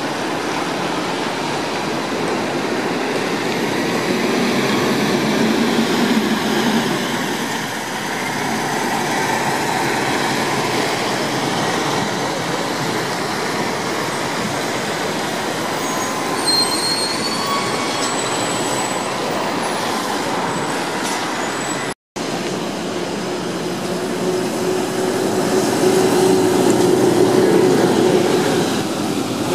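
Wet-road street traffic: tyres hissing on wet asphalt as cars and an electric trolleybus pass, with a few brief high squeals a little past halfway. Near the end a trolleybus passes close and its running noise and motor hum swell.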